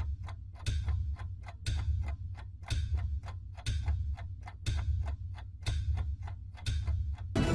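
Film-leader countdown sound effect: a mechanical clicking, about three clicks a second, like a film projector running, with a louder tick and low thud once a second as each number passes. Music comes in at the very end.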